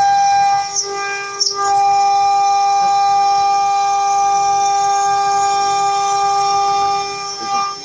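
CNC router spindle whining steadily at a high, constant pitch as its end mill cuts aluminum-plastic composite panel. The whine dips briefly about a second in and falls off near the end.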